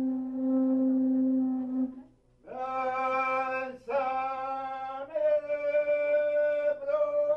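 Intro music of long held, voice-like sung notes. The notes break off about two seconds in and come back higher, each held for a second or more.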